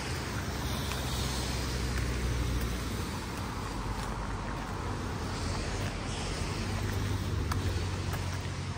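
Road traffic: cars passing, a low rumble that swells and fades twice over a steady background hiss.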